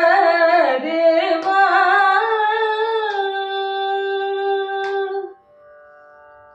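A female Carnatic vocalist sings the winding closing phrase of a padavarnam in raga Nattakurinji and settles into a long held note that stops about five seconds in. Afterwards only the faint steady drone of an electronic tanpura (shruti box) remains.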